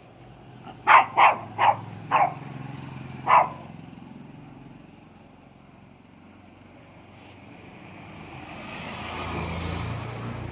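A dog barking five times in quick succession, then a vehicle passing, its noise rising and fading near the end.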